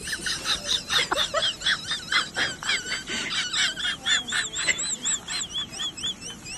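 Rapid run of short, high chirps from a bird, about four or five a second.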